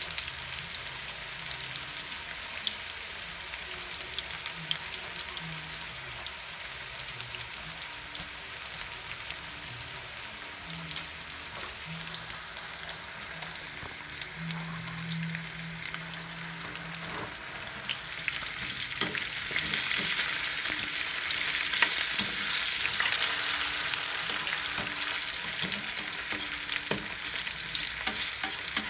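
Diced potatoes, carrots and bell pepper frying in oil in a pan: a steady sizzle full of small crackles and pops. It grows louder about two-thirds of the way through.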